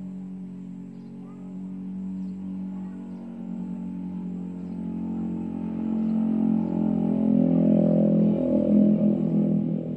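Background music: a sustained droning chord of held tones that slowly swells louder.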